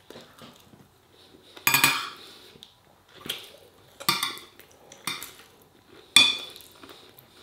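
Metal cutlery clinking and scraping against a plate of food, about five separate strokes, the loudest about two seconds in and near the end.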